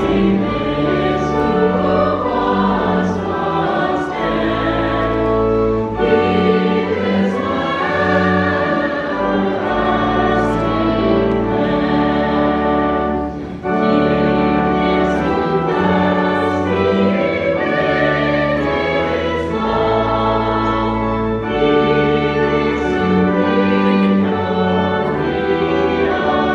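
A church choir singing a hymn with vibrato over instrumental accompaniment, which holds long low notes that change every second or two.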